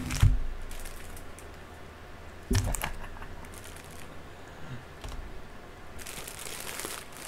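Packaging and items being handled while unpacking a box: a dull thump at the start and another about two and a half seconds in, scattered light clicks, and a stretch of rustling near the end.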